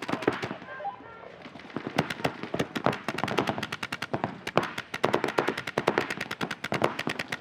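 Paintball markers firing: scattered shots at first, then rapid strings of many shots a second from about two seconds in, several guns at once.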